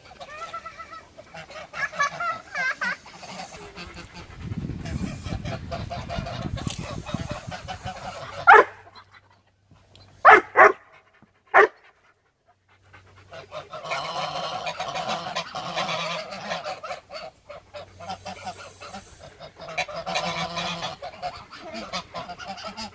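A flock of domestic geese honking and gabbling steadily, with four loud single honks about eight to twelve seconds in.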